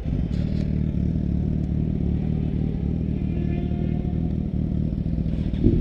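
Sport motorcycle engine firing up and running at a steady idle close by. Just before the end it gets louder and a little higher as it is revved.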